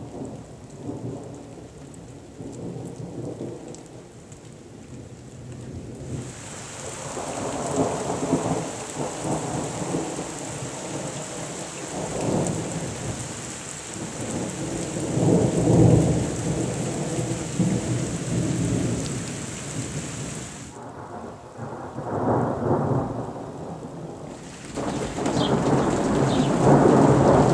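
Thunder rumbling in several long rolling peals, with the loudest near the end, over a steady hiss of falling rain.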